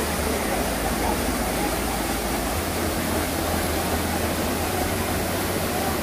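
Waterfall pouring down a narrow rock cleft into a pool: a steady rushing of falling water, with faint voices in the background.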